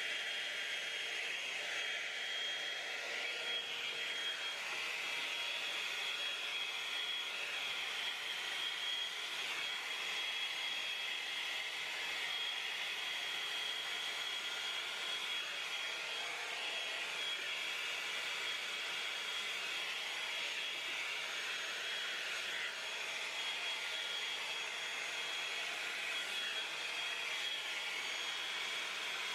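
Drybar Double Shot blow dryer brush running steadily: a constant rush of air with a steady high-pitched whine.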